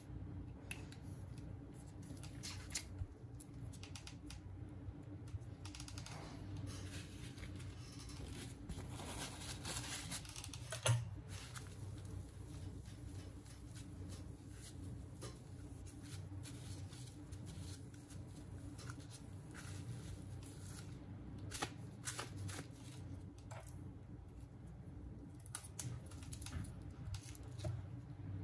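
Hands and small tools handling a Samsung Galaxy Note 8 during a battery replacement. There are scattered light clicks and taps, a longer rustle about nine to ten seconds in, and a sharp click about eleven seconds in, over a steady low hum.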